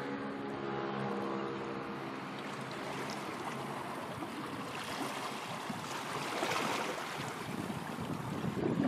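A vessel's engine droning low and steady, fading out over the first two seconds. Then a rushing wash of waves and wind on the microphone swells, loudest near the end.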